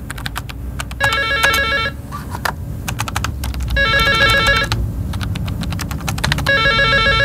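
Desk telephone ringing three times, each a warbling electronic trill just under a second long, about three seconds apart. Laptop keyboard keys click between and under the rings.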